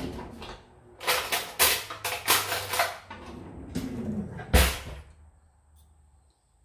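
Metal cutlery clattering as a kitchen drawer is rummaged for a spoon, with a rapid run of sharp clinks, then a single loud thump about four and a half seconds in as the drawer is shut.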